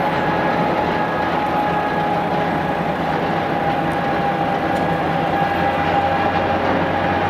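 Jet airliner engines running steadily: an even rumble with a steady high whine over it.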